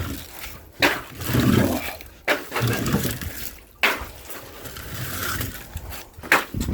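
Firewood being unloaded: four sharp knocks of wood landing, about a second and a half apart, with rustling and scraping between as the wood is handled.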